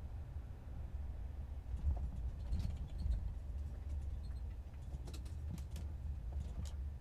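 Low, steady road rumble of a van driving, heard from inside the cabin, with scattered light clicks and rattles.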